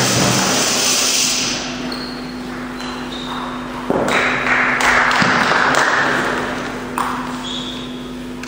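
Celluloid-type table tennis ball being struck during a short doubles rally: a few sharp clicks off bats and table, roughly a second apart, in a large reverberant hall. A wash of crowd noise fades out in the first second or so.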